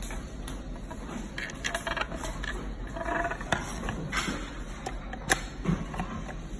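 Handling noise from a plastic electronic locker lock and a metal screwdriver on a wooden desk: scattered light clicks, taps and scrapes, with the sharpest click about five seconds in.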